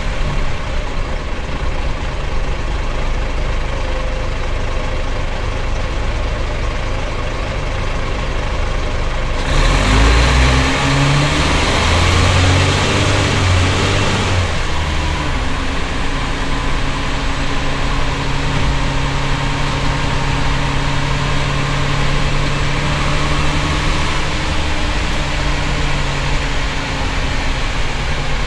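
Cummins L10 six-cylinder turbo diesel of a Leyland Tiger bus, heard from the driver's cab. It runs at low revs for about ten seconds, then pulls hard: it turns suddenly louder, the revs climb, and a faint high whine rises with it for about five seconds. It then settles into a steady drone that eases slightly near the end.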